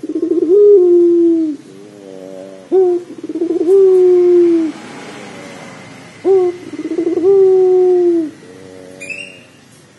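Puter pelung dove cooing: three long coos about three seconds apart, each a short rising note, a quick tremble and then a long held note that sags slightly in pitch. A brief high chirp comes near the end.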